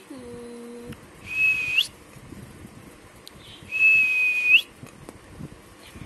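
A person whistling two held high notes, each under a second long and sliding up at the end; the second is longer and louder. There is a short low hummed note just before them.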